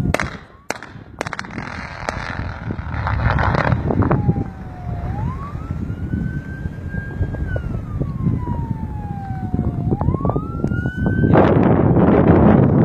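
A warning siren wails, slowly rising and falling. In the first few seconds a series of sharp bangs and a rumble come from the blasting. Low wind-like noise runs underneath, and a loud rush of noise comes near the end.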